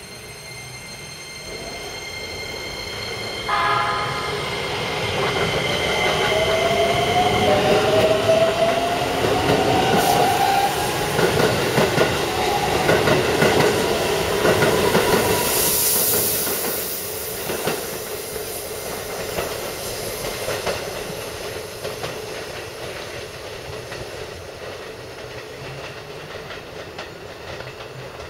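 Keikyu 1000 series electric train pulling away: its motors whine, rising in pitch as it accelerates from about five to eleven seconds in, over the clatter and rumble of wheels on rails as the cars pass close by. The noise eases off as the train moves away. A short tone sounds about three and a half seconds in.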